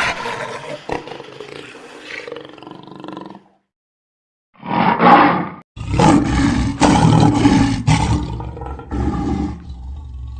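Large animal calls in three separate short clips, cut one after another with brief silent gaps: the first ends about three and a half seconds in, and the second lasts about a second.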